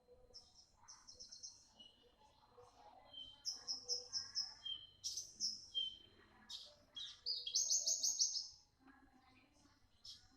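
Young Javanese bushlark (branjangan) singing: runs of rapid, sharp, high repeated notes in fast trills, with the loudest trill about three-quarters of the way through.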